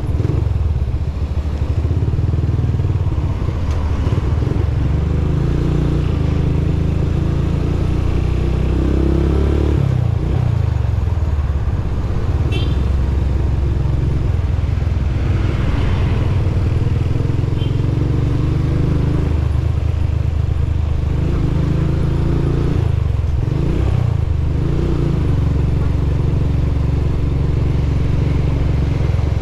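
Motorcycle engine running while riding, its revs rising and falling, with several brief dips in pitch.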